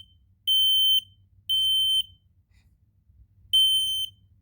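Kidde P9050 smoke alarm sounding its test alarm: loud, high-pitched half-second beeps in the three-beep evacuation pattern, with two beeps ending one group, a gap of about a second and a half, then the next group starting.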